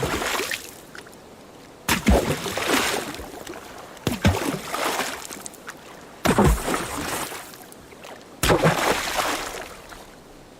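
Water sloshing and splashing in repeated surges, one about every two seconds, each starting suddenly and then draining away.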